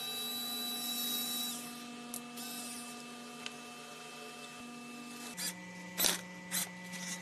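Homemade 12 V mini electric screwdriver, a small geared DC motor, running with a steady whine. About five seconds in its hum drops in pitch as it drives a screw into a wooden block, with a few loud clicks.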